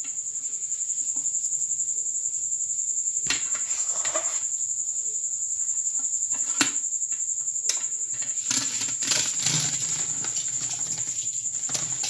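Hand-cranked stainless steel puran yantra (food mill) being turned to force hot cooked dal through its perforated plate. The blade gives irregular metal scrapes and clicks against the plate and pot, busiest about two-thirds of the way through. A steady high-pitched pulsing chirr runs underneath.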